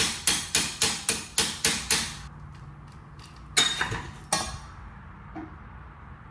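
A hammer striking metal on a car's front suspension: a quick, even run of ringing blows, about four a second, that stops about two seconds in, then two more single blows a moment later.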